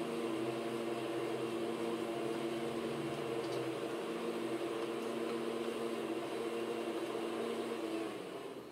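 A steady hum made of several constant pitches, fading out near the end.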